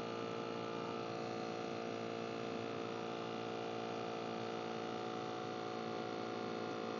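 YFJJFY CZK-3668 cordless portable tire inflator running with a steady, even hum as its small electric compressor pumps up a motorcycle tire.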